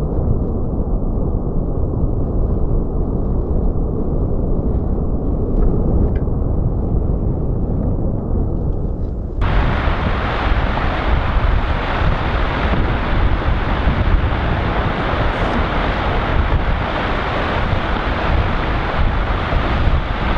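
Loud, steady rumbling noise, heaviest in the low end. About nine seconds in it changes abruptly to a brighter, hissier roar.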